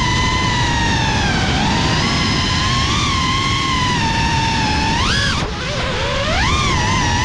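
FPV quadcopter's brushless motors whining under a rush of propeller wash and wind, the pitch rising and falling with the throttle. It sweeps sharply up and back down about five seconds in, and again near the end.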